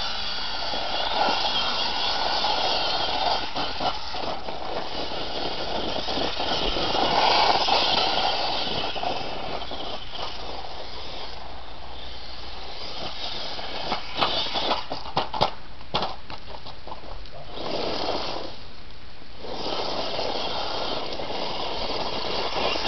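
Traxxas 1/16 E-Revo VXL RC truck driving over loose dirt, its brushless electric motor whining under a steady rush of tyre and gravel noise. There is a cluster of sharp clicks and knocks about 14 to 16 seconds in, and the noise drops away briefly about 18 seconds in.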